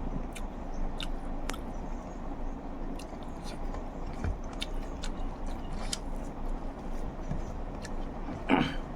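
A person chewing and smacking food close to the microphone while eating egg curry, with frequent sharp wet mouth clicks over a steady low hum. A short, louder noisy mouth sound comes near the end.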